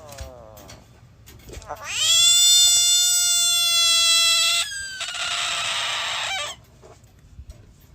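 A cat yowling: a short faint falling meow, then one long, loud, steady yowl of nearly three seconds that turns into a rougher, noisier cry and stops about six and a half seconds in.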